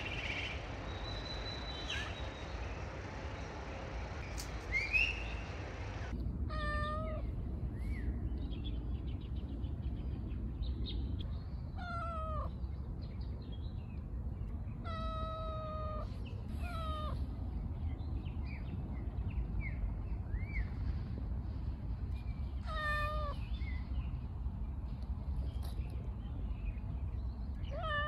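Domestic cat meowing repeatedly, starting about six seconds in: around six meows a few seconds apart, some short and chirp-like, some drawn out, over a steady low background rumble.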